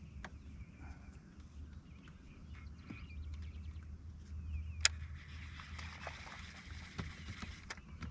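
Small clicks and taps from handling a fishing rod and loose line, with one sharp click about five seconds in, over a low steady rumble.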